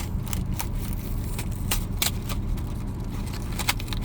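Blind-box packaging being handled and torn open, a run of sharp crinkles and clicks, over the steady low hum of a car engine idling.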